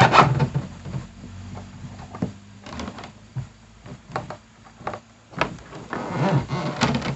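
Handling noise from working wiring and fittings inside a plastic kayak hatch: a loud rustling scrape at the start, scattered clicks and knocks, and more rustling near the end.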